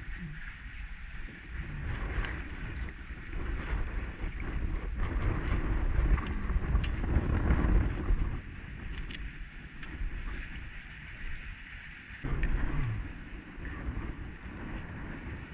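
Strong wind gusting over the microphone, with choppy water slapping against a kayak hull; the gusts are loudest about halfway through.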